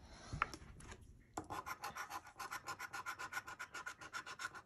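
A coin scratching the coating off a paper lottery scratch-off ticket in rapid, even back-and-forth strokes, starting about a second and a half in after a brief rustle of handling.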